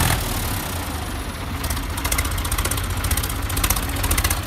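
Sonalika DI-50 tractor's diesel engine running steadily under load while the tractor drags a soil leveller through loose earth, with spells of rapid ticking and clattering.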